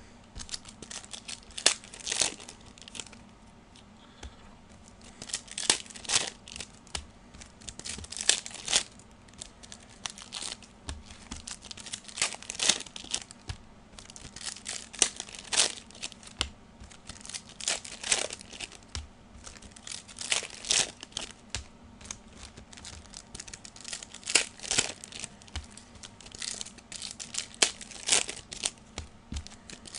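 Football trading card pack wrappers being torn open and crinkled by hand: an irregular run of sharp rips and rustles.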